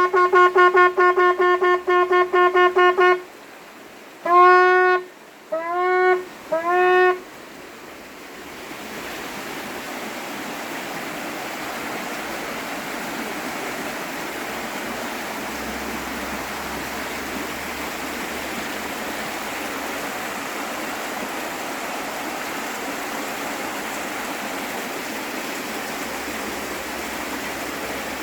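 Shofar (ram's horn) blown in quick broken blasts, about four a second, for some three seconds, then three short blasts that each bend up in pitch at the start. From about eight seconds in, only the steady rush of river water remains.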